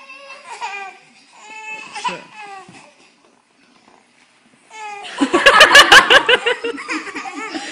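Babies giggling and squealing in short bursts, then after a brief pause a loud burst of hearty, rapidly pulsing laughter from about five seconds in.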